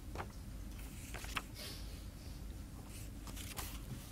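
Faint rustles and light clicks of paper sheets being handled, over a low steady room hum.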